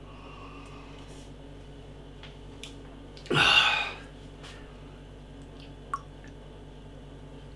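A man's short, loud breathy gasp after swallowing a mouthful of beer, a little over three seconds in. A small sharp clink follows near six seconds as the can is tipped to the glass to pour.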